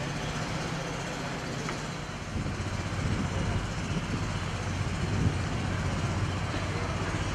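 Steady rumbling outdoor noise with a low hum, growing louder about two seconds in.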